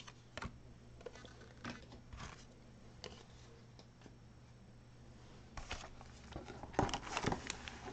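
Faint rustling and light clicks of hands handling trading cards and foil card packs on a table, with a louder burst of crinkling about seven seconds in.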